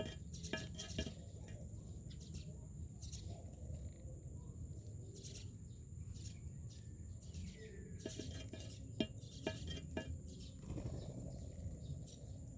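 Myna birds calling in short, scattered chirps and clicks, with one downward-sliding whistle about halfway through, over a steady low rumble.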